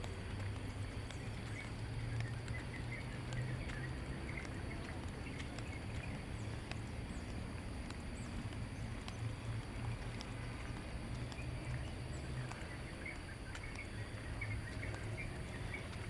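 Smooth-coated otters chirping in short, high calls, in a flurry early on and again near the end, over a steady low hum.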